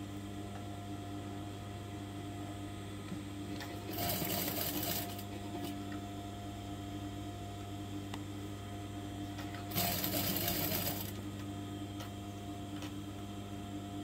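Sewing machine stitching a seam through fabric in two short runs of about a second each, one about four seconds in and one near ten seconds in, with a steady hum underneath.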